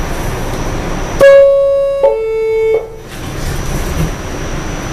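Subway car door-closing chime: two loud electronic tones, a higher one about a second in followed by a lower one, ending after about a second and a half; it signals that the doors are about to close. A steady hum of the train car runs underneath.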